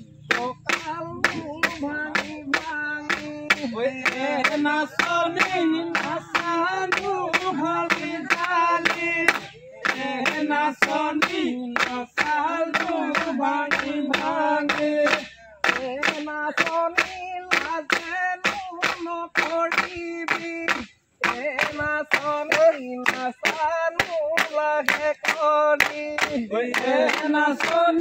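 Voices singing a Bihu song over steady rhythmic hand clapping. The singing stops for a moment a few times while the claps carry on.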